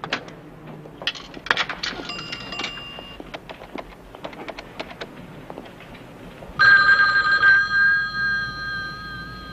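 A payphone being handled and dialled, with a scatter of clicks and a few short tones. About six and a half seconds in, a touch-tone desk telephone's bell rings loudly, one ring of about two seconds that then fades.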